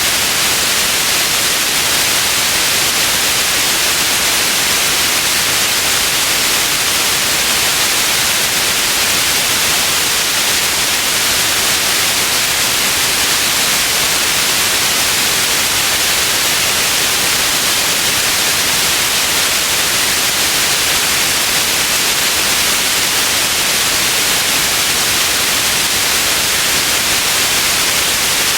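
Steady white noise: an even, unchanging hiss weighted toward the high end, with no breaks or events.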